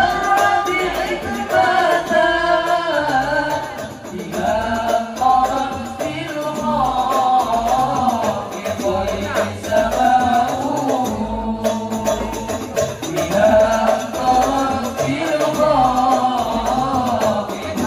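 Al Banjari ensemble performing: singing of an Islamic devotional song over a steady beat of hand-struck terbang frame drums.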